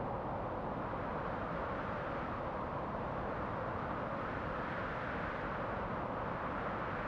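Steady rushing wind with a bright, hissy tone that swells and eases slowly, without gusts or breaks.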